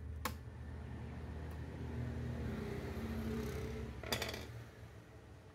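Hands handling a laptop motherboard in its plastic base: a sharp click just after the start and a brief clatter of clicks about four seconds in. Under it a steady low hum, louder in the middle.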